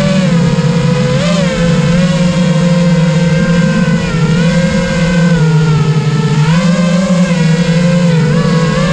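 Multirotor drone's motors and propellers whirring steadily, their pitch rising and dipping together every second or two as the craft manoeuvres.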